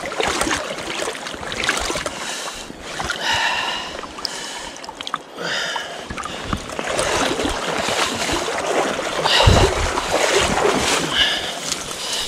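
Shallow river water sloshing and splashing around a wading angler's legs, over the rush of the current, with heavy low thumps about nine and a half seconds in.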